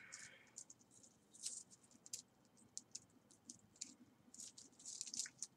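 Faint, light clinking and rattling of a metal chain belt's links as it is handled, a scatter of small irregular clicks.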